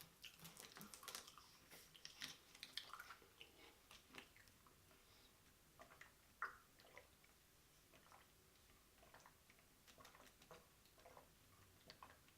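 Faint close-up mouth sounds of eating: soft, wet clicks and smacks of chewing scattered throughout, busier in the first few seconds, with one sharper click about six seconds in.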